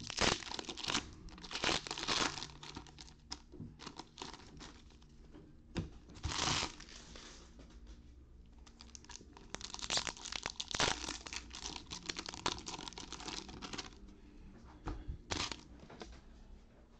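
Foil trading-card pack wrappers being torn open and crinkled by hand, in irregular crackling bursts that come and go.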